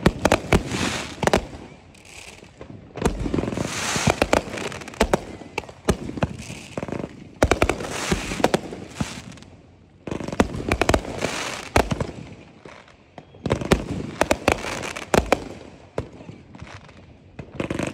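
Aerial fireworks going off in quick succession: volleys of sharp bangs from shells breaking overhead, with the crackling of glittering stars between them. The volleys come in waves every two or three seconds.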